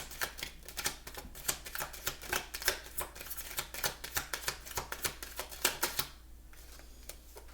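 A deck of cards being shuffled and handled: rapid, irregular card clicks and snaps that stop about six seconds in.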